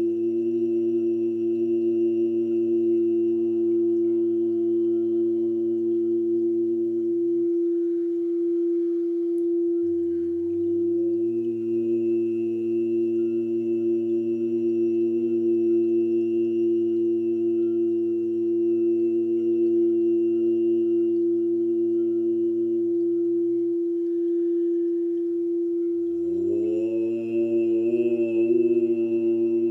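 A man's voice chanting long, low held notes in a sound-healing chant over an unbroken steady drone tone. The voice stops for a breath about seven seconds in and again a few seconds before the end, and each time slides up into the next held note.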